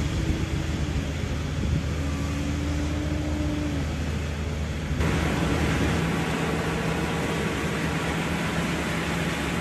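Mulch blower truck running, with a steady rush of air and bark mulch through a large hose over a low engine hum. The noise steps up a little louder about five seconds in.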